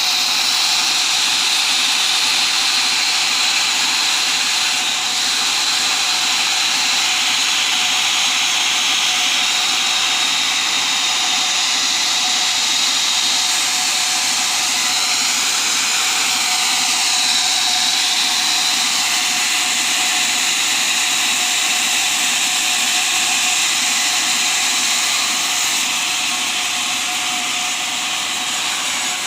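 Sawmill running: a loud, steady, hissing mechanical whine with small sweeps in pitch around the middle, typical of a saw working through teak timber.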